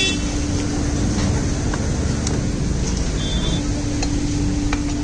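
Steady low background rumble, typical of vehicles and machinery around a workshop. A constant low hum runs under it, and there are a few faint light clicks.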